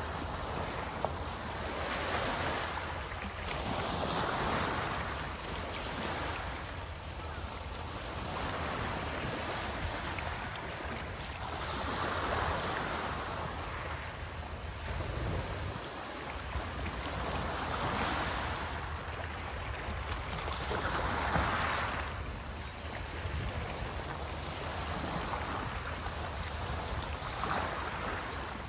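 Small waves washing onto the shore, one soft swell of surf every two to three seconds, over a low wind rumble on the microphone.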